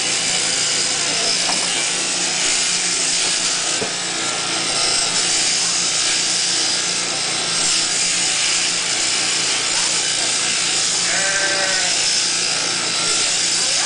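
Machine sheep-shearing handpiece buzzing steadily as it cuts through the fleece. A sheep bleats briefly about eleven seconds in.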